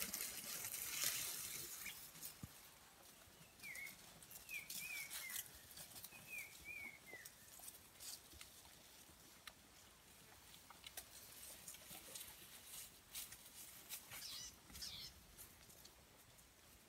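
Faint, scattered crackling and snapping of dry twigs and brush as an elephant feeds. A bird gives a quick run of short, falling chirps a few seconds in.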